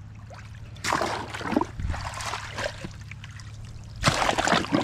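Muddy water splashing and trickling as a plastic vehicle-recovery traction board is dipped in a mud puddle. There are two bouts, about a second in and a louder one near the end.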